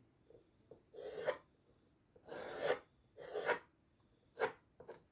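Graphite pencil drawn along paper, outlining the lines of a technical drawing: four strokes of about half a second each, then a couple of shorter strokes near the end.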